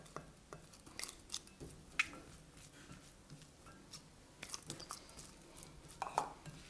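Spatula scraping and tapping against a small plastic tub and a glass salad bowl as berries are scraped in and stirred through the salad: scattered soft clicks and scrapes, with a sharper tap about two seconds in.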